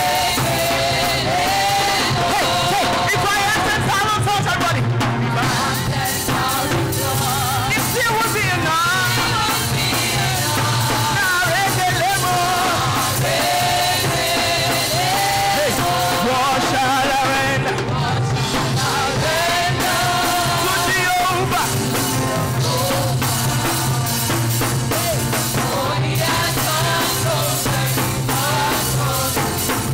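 Live gospel praise and worship music: a group of singers leading a song into microphones, backed by a live band and amplified through loudspeakers, continuous and loud.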